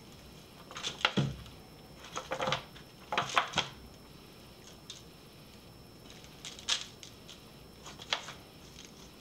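Dry rub being shaken from a spice shaker onto beef ribs and rubbed in by hand in a disposable aluminium foil pan. It comes as short bursts of shaker rattle, rubbing on the meat and foil crinkle, about six of them, unevenly spaced.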